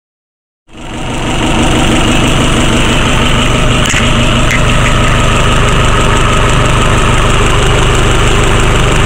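Fisher 34 MKII's inboard marine diesel engine idling loudly and steadily, fading in about a second in.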